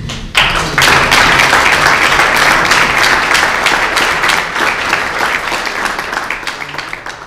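Audience applause, many people clapping together: it breaks out about half a second in, peaks quickly, then slowly dies away near the end.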